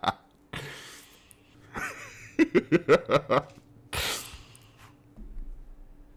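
A person laughing in a quick run of short voiced bursts, with breathy exhales before it and a sharp breathy burst just after it.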